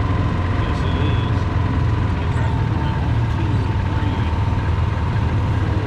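Steady low drone of a slow-moving vehicle's engine, with a thin steady whine above it.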